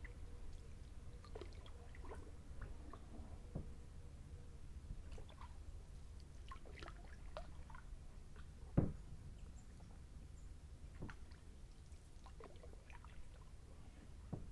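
Faint drips and small trickles of water around a gliding kayak, with one sharp knock about nine seconds in.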